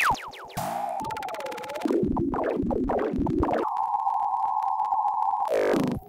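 Glitch sound effect made from a sine wave run through the Glitchmachines Fracture XT plugin. It opens with a falling pitch sweep, moves through a warbling tone and a jumble of chopped, stuttering synth fragments, then holds a steady buzzing tone with rapid clicks, and ends in another sweep that cuts off abruptly.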